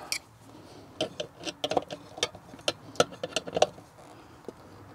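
Small irregular clicks and metal taps of pliers and a screwdriver working wires inside a metal NEMA 14-50 receptacle box: about a dozen quick clicks in a cluster starting about a second in, then one more click near the end.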